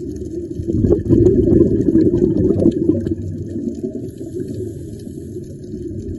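Underwater recording: a steady low rush of water noise, with a louder burst of bubbling air about a second in that lasts about two seconds.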